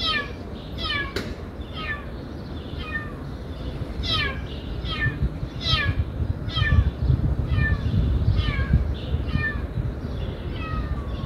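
Kittens trapped under a car's bumper crying over and over, each high meow falling in pitch, about one or two a second. A low rumble runs underneath, loudest in the middle.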